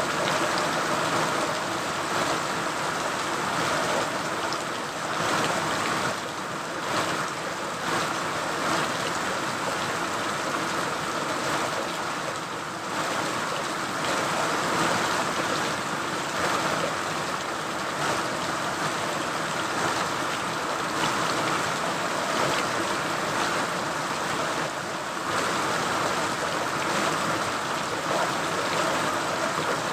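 Rain falling steadily: an even, continuous hiss of water.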